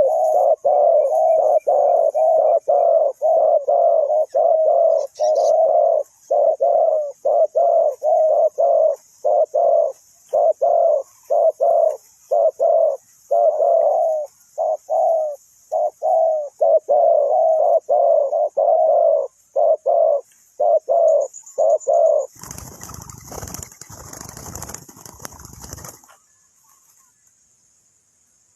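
Spotted dove cooing: a long run of short, low coo notes repeated two or three times a second. The coos stop about 22 seconds in and give way to a few seconds of rumbling, rustling noise.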